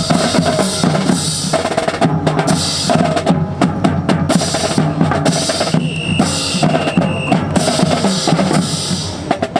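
Marching snare and bass drums playing a steady drill cadence, with a short high steady tone about six seconds in.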